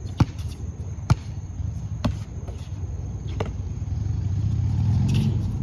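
Basketball dribbled on a hard court: four sharp bounces about a second apart. From about halfway through, a motor vehicle's engine hum grows louder.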